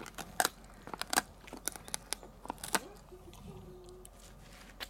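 Golden retriever chewing a dried pig ear, with sharp crunching and cracking bites coming quickly through the first three seconds, then easing off, and one more crack near the end.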